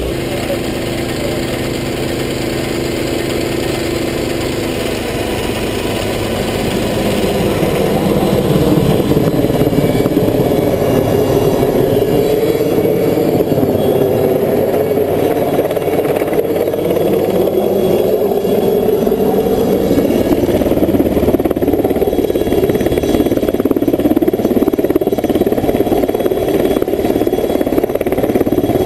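Helicopter flying low overhead carrying a slung water bucket. Its rotor and engine noise swells over the first several seconds and stays loud, with the pitch wavering up and down as it moves. The first few seconds hold a steadier engine hum.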